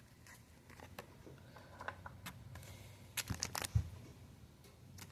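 Handling of trading cards and foil booster-pack wrappers: scattered light crinkles and clicks, a quick cluster of them a little past three seconds in, and a soft thump just before four seconds.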